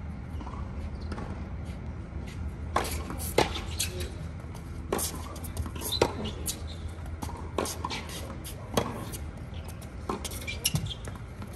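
Tennis rally on a hard court: sharp pops of the ball off the rackets and its bounces on the court, coming roughly every second, over a steady low background.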